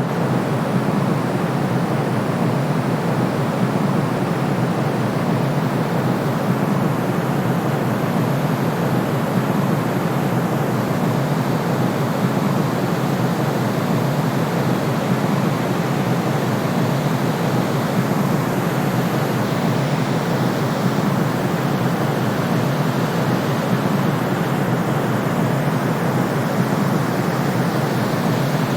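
Steady white noise for infant sleep: a smooth, even rushing hiss that never changes. Most of its weight sits in the low and middle range rather than the bright top.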